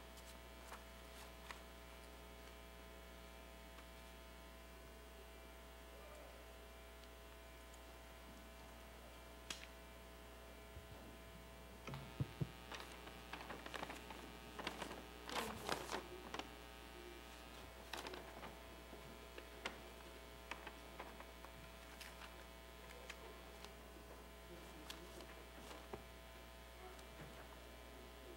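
Quiet room tone with a steady electrical mains hum. Around the middle, a cluster of small knocks and handling noises.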